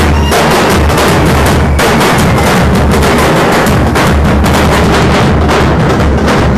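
Very loud music with a heavy, fast drum beat and deep pulsing bass.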